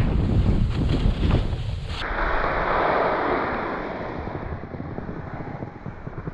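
Wind buffeting an action camera's microphone while skiing downhill. About two seconds in, the low rumble changes abruptly to the hiss of skis sliding over packed snow, which fades as the skier slows.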